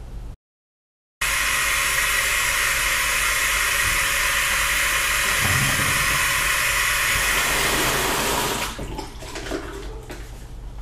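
Bathroom tap running steadily into a sink basin, a loud even rush of water, after a moment of dead silence at the start. Near the end the water stops, leaving faint wet rubbing and splashing from hands at the sink.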